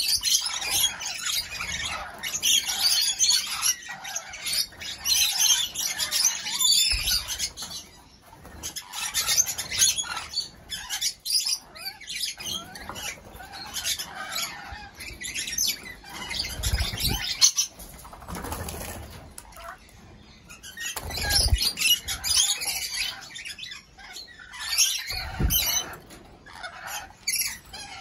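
A flock of rainbow lorikeets chattering and screeching in dense, high-pitched spells, with wing flaps and a few short low thumps as birds fly in and land.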